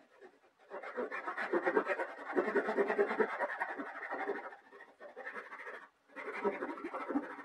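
Japanese backsaw sawing through gum wood, making the first waste cut on the outside of a dovetail tail board. Two spells of quick scraping strokes with a pause in the middle, about five seconds in.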